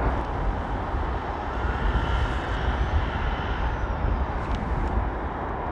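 Steady outdoor rumble, heaviest in the low end, with a faint whine that rises and falls about two to three seconds in.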